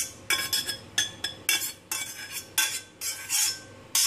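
A metal spoon scraping cooked minced pork out of a stainless steel saucepan into a steel mixing bowl: a quick series of ringing metal clinks and scrapes, about two a second.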